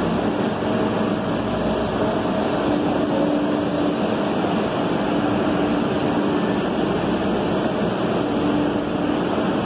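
MBTA Green Line Type 7 light-rail car beside the platform: a steady, loud rumble with a low hum that comes and goes.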